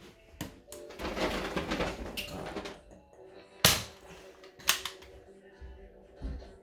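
A spring-powered Nerf pistol being handled and fired: a few sharp plastic snaps, the loudest a little past the middle and another about a second later, with faint steady tones in the background.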